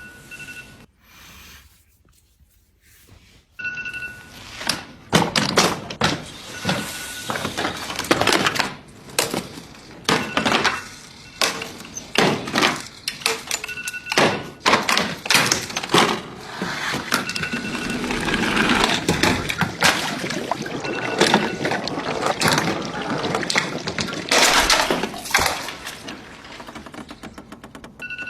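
Electronic alarm clock beeping in short high-pitched beeps that come and go, over a long run of loud thumps and bangs, some with a breaking crash. The knocking starts about four seconds in and keeps up to the end.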